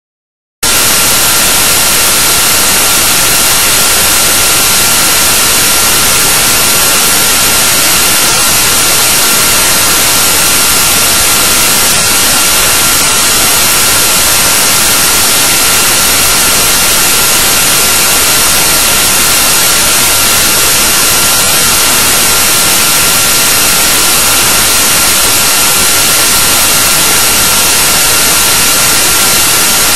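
Loud, even hiss with a steady high-pitched whine, starting abruptly about half a second in and never changing: noise on the recording rather than any sound from the gym.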